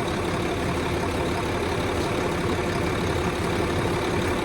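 An engine idling steadily, with an even low drone and a constant hum.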